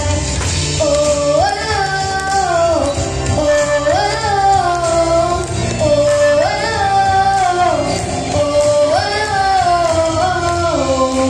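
A young girl singing into a microphone over instrumental accompaniment. She sings four similar phrases about two and a half seconds apart, each rising to a held note and then falling away.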